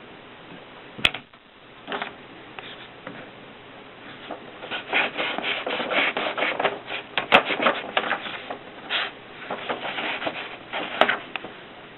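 Antique Mercedes manual typewriter mechanism being worked: a single sharp click about a second in, then a dense run of quick clacks and rattles from about four and a half seconds in that thins out near the end.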